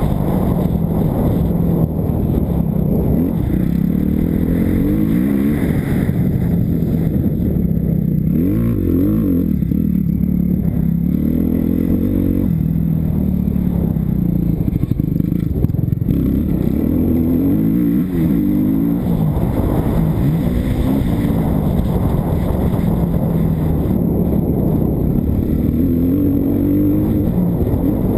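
Kawasaki KX250F's single-cylinder four-stroke engine being ridden hard, its pitch rising and falling again and again as the rider opens and closes the throttle and shifts gears.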